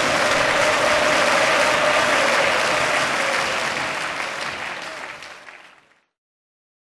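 A crowd applauding after a speech, fading out to silence about six seconds in.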